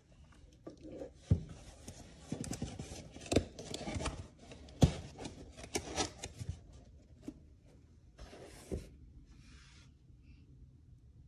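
Close handling noises of small objects: a run of knocks and clicks, the loudest about one, three and a half and five seconds in, followed by two short rustles near the end.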